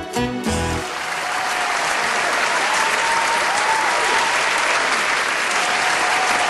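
The band's closing chords cut off within the first second, then an audience applauds steadily.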